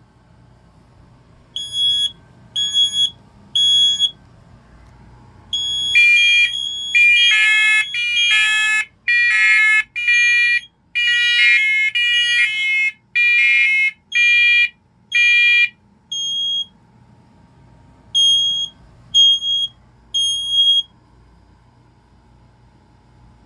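Several interconnected First Alert smoke alarms beeping in the three-beep smoke pattern. A single high beeping alarm comes first. From about six seconds in, many alarms at different pitches overlap. After about sixteen seconds they drop out, leaving one last group of three beeps near the end.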